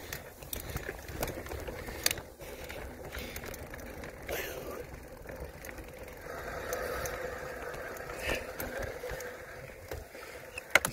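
Mountain bike riding over sandstone slickrock: low tyre rumble with frequent rattles and knocks from the bike, and a steady buzz from about six to nine and a half seconds in.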